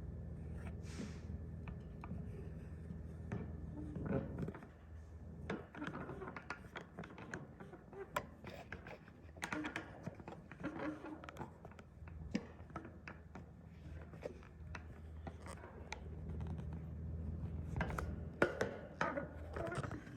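Scattered light clicks and taps, irregular and thicker near the end, over a steady low hum.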